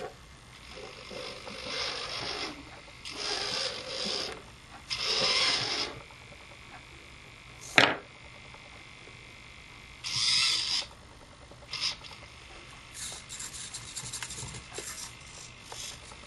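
Small hobby RC servos driving a robot arm's joints, whirring in short bursts of about a second each as the arm moves, with a single sharp click about eight seconds in. Near the end the servos give a run of fast, jittery chatter, typical of small cheap airplane servos.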